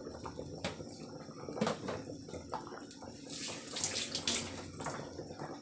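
Pork sinigang broth with okra at a rolling boil in an open pressure-cooker pot, bubbling steadily, with a few light clicks and a brief louder hiss about three and a half seconds in.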